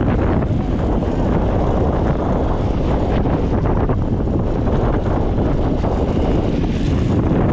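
Strong wind buffeting the microphone: a loud, steady low rumble and rush with no pauses.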